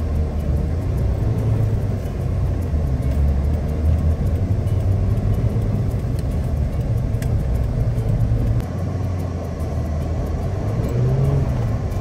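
Manual-transmission car's engine and road noise heard from inside the cabin while driving. The low engine hum shifts as gears are changed, dropping about nine seconds in and briefly rising near the end.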